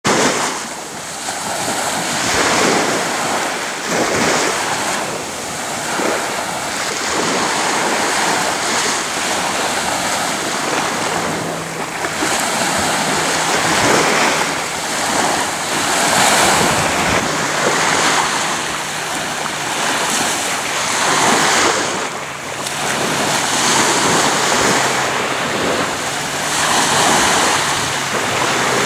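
Small sea waves breaking and washing up on a sandy beach, the surf swelling and fading every few seconds.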